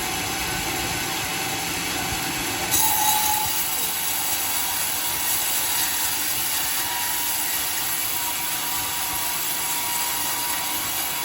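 Home-made sawmill running steadily. About three seconds in, a sharper high hiss joins suddenly and holds.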